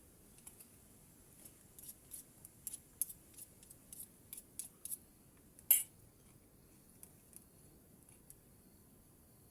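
A series of irregular sharp clicks and snaps, with one louder snap just past the middle.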